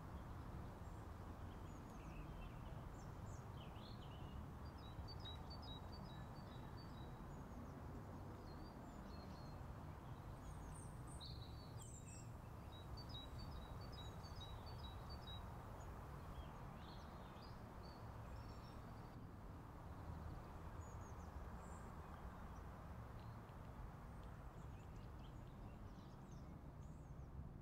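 Faint steady background hiss with scattered bird chirps, including two short rapid trills of repeated high notes, about five and thirteen seconds in.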